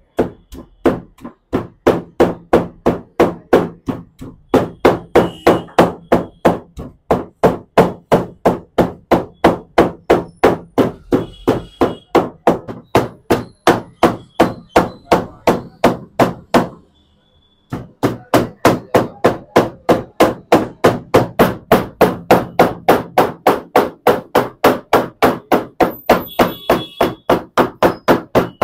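Meat cleaver chopping raw boneless chicken into mince on a plastic cutting board: a steady run of sharp chops, about three a second, with a break of about a second two-thirds of the way through.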